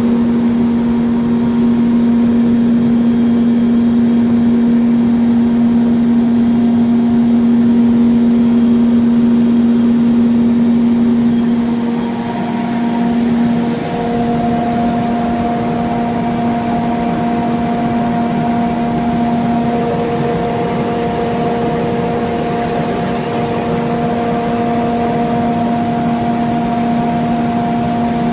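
Cummins KTA50-G8 16-cylinder diesel generator engine running steadily, a loud drone with a few steady tones. About twelve seconds in, the tones shift and the level dips briefly before settling again.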